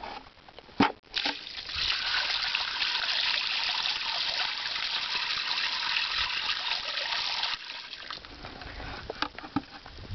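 Water poured out of a plastic bucket onto the ground: a steady splashing gush lasting about six seconds that stops abruptly. A single knock comes just before it starts.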